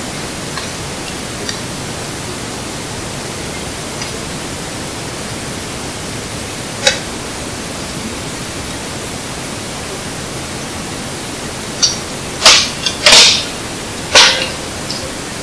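Campfire burning over a steady loud hiss, with a single sharp pop about halfway through and a quick run of loud cracks and pops near the end.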